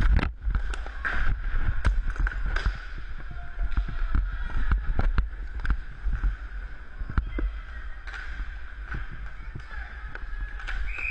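Roller hockey play heard from a skater's helmet camera: a low rumble of inline skate wheels rolling on the rink floor, broken by many sharp clacks of sticks and puck. A heavy thump right at the start, as two players collide. A steady high whine runs underneath.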